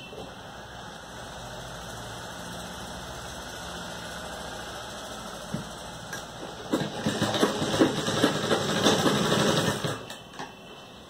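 Sewing machine running, stitching a seam through the fabric pieces of a face mask for about three seconds; it starts a little past halfway through and stops near the end.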